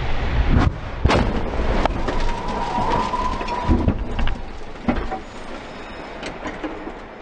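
Car crash-test impact: a series of heavy bangs and crunches at irregular intervals, loudest in the first two seconds, then smaller knocks as it dies down, with a brief ringing tone near the middle.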